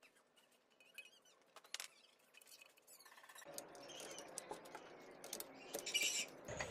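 Faint, scattered clicks and light taps of hard plastic parts, a fuel tank and a chain guard, being handled and fitted onto a small bike frame. A soft background hiss comes in about halfway through.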